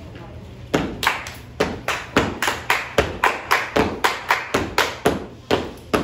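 Group of children clapping and slapping their bodies in unison in a step routine. The hits start about a second in and fall in a steady beat of about three to four a second.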